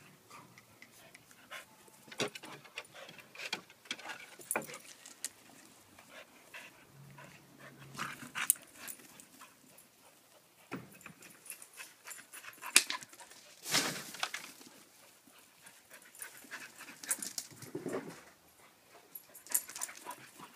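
Two terriers, a Lakeland Terrier puppy and a Soft Coated Wheaten Terrier, play-fighting: panting, with irregular scuffles and knocks throughout and a few louder bumps in the second half.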